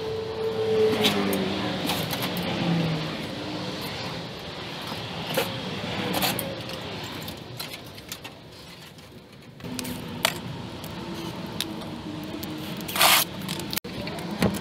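Scattered light metallic clinks and taps from work on an old metal awning, over a steady background hum.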